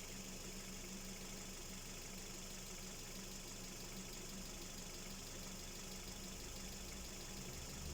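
Hyundai Solaris G4FC 1.6-litre four-cylinder engine idling steadily with a fast light ticking knock, the kind the owner hears only with the engine hot and which comes and goes by itself.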